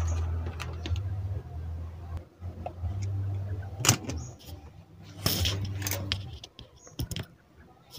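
Plastic knocks and short rattles, about four and five seconds in and once more near the end, as the switch and wiring inside an opened blender base are handled, over a low hum that comes and goes.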